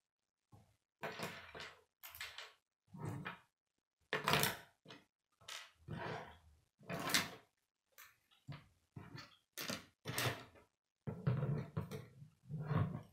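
Plastic K'nex rods and connectors clicking and clattering as they are handled on a wooden table and snapped together, in an irregular string of short bursts about once a second.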